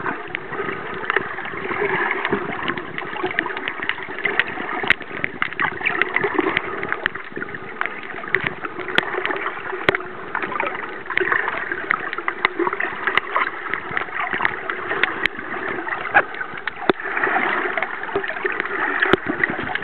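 Water heard through a submerged camera while snorkeling: a steady muffled rushing with many sharp clicks and crackles scattered through it.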